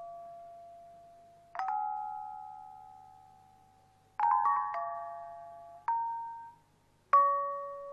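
Khong wong yai, the Thai circle of tuned bronze kettle gongs, played solo in a slow passage. Single notes and two-note strikes come a second or two apart, each ringing on and dying away, with a quick run of strokes about four seconds in.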